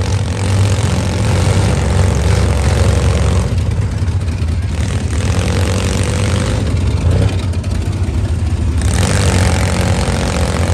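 Engines of demolition-derby vans, trucks and SUVs running and revving in the arena: a steady low engine drone that rises and falls with the revs.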